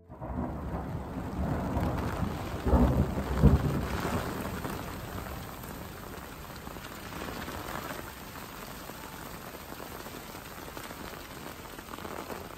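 Steady rain falling, with a loud rumble of thunder about three seconds in that dies away.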